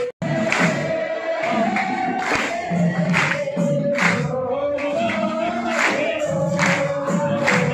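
A large group of men singing a devotional chant in unison on a long held melody line, with rhythmic hand clapping keeping time, roughly one clap every half to three-quarters of a second.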